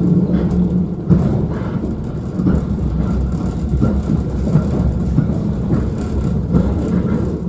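Inside a moving passenger train coach: the steady rumble of the wheels running on the rails, with a low hum and scattered knocks and clatter from the track.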